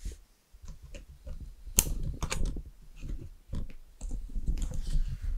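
Irregular clicks, knocks and rustling with low thumps, handled close to the microphone.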